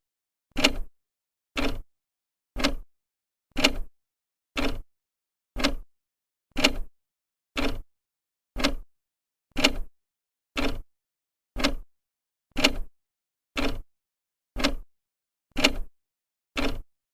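An old clock's second hand ticking: one short, even tick every second.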